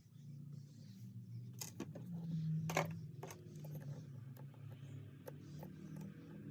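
Scattered small clicks and light taps of small metal tools and tiny screws on a smartphone's parts during disassembly, over a steady low hum.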